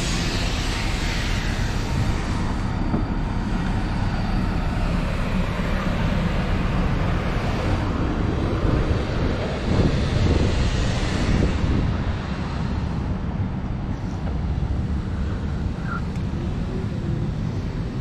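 Wind rumbling on the camera microphone while it moves outdoors: a steady, noisy roar, heaviest in the low end, swelling about eight to eleven seconds in.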